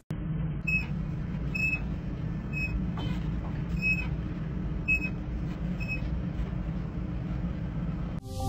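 Farm tractor engine running steadily, heard from inside the cab, with a short high electronic beep repeating about once a second for the first few seconds.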